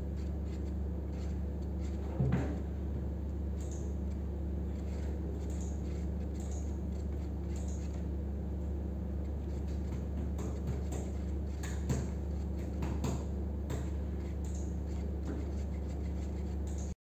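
A loud, steady low hum throughout, with light scrapes and taps of a wooden stick stirring in a paper cup: a sharper knock about two seconds in and a few more around twelve to thirteen seconds. The hum cuts off suddenly near the end.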